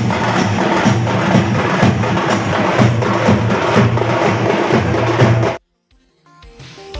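Parade drums, snare and bass drums, beating a quick steady rhythm. They cut off abruptly about five and a half seconds in, and after a brief silence other music fades in faintly near the end.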